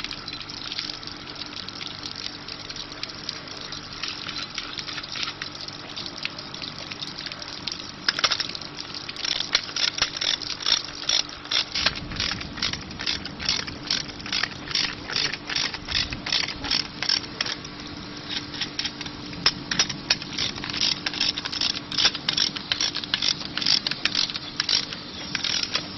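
Quick, repeated metallic clicks of a spanner working the bolt on a stainless steel pipe repair clamp, starting about eight seconds in, over a steady hiss.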